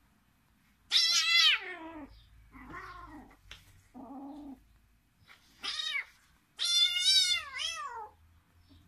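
Kitten meowing in protest while being pinned in play, about five drawn-out cries. The loudest come about a second in and near the end, and several slide down in pitch as they fade.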